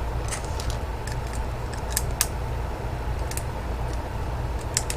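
Hard plastic model-kit parts being handled and pressed together, giving a few sharp, scattered clicks, two close together about two seconds in and two more near the end, over a steady low hum.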